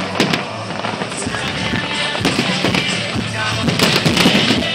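Aerial fireworks bursting: a few sharp bangs near the start, then a dense crackling that grows louder near the end, with music playing along.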